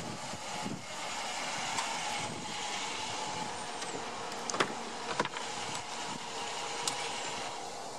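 Steady background hiss, with two sharp clicks about half a second apart near the middle and a lighter click later: a Dodge Durango's driver's door being unlatched and swung open.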